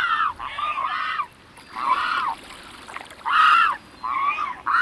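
Pelican calling: a string of about six short calls, each rising then falling in pitch.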